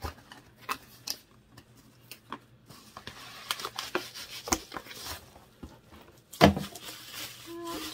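Packaging being unwrapped by hand: scattered clicks and crinkles, a stretch of rustling in the middle, and one knock about six and a half seconds in.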